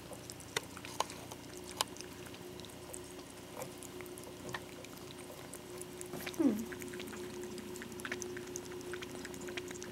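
A ferret lapping duck soup from a stainless steel bowl, a string of small irregular clicks over a faint steady hum. A short falling squeak comes about six and a half seconds in.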